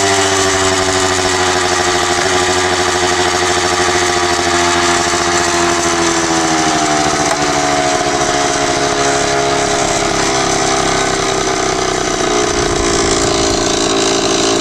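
Yamaha DT 50 MX prototype's small two-stroke engine running steadily on its first run after restoration, its pitch drifting slowly lower.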